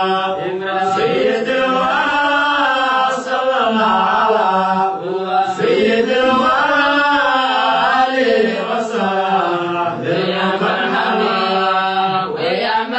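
Chanting of a qasida, a devotional Islamic poem, in a slow melodic line that rises and falls over a steady held low note.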